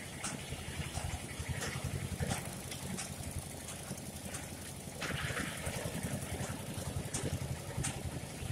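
A low, steady engine hum, like an idling motor, with short high chirps every second or so. About five seconds in, a hiss of noise joins it.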